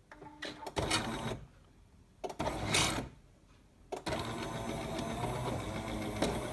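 Jura Impressa J85 bean-to-cup coffee machine running its start-up rinse: the pump buzzes in two short spurts, then runs steadily from about four seconds in as water is pushed through the spouts.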